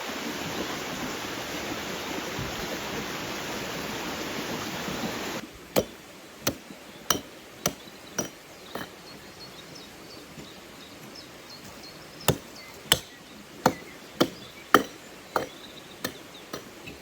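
A steady, loud noise that stops abruptly about five seconds in. Then come two runs of sharp, regular striking blows, about one and a half a second, with a pause of a few seconds between the runs.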